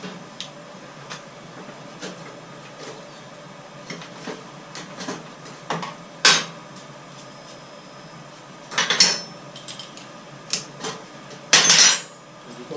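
Metal hand tools clinking and knocking against metal, a scatter of sharp clicks with louder clanks about six, nine and twelve seconds in.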